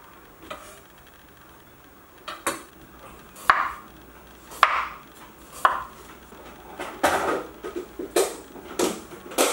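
Kitchen knife slicing a raw carrot into rounds, each cut ending in a crisp knock on a wooden cutting board, roughly one cut a second.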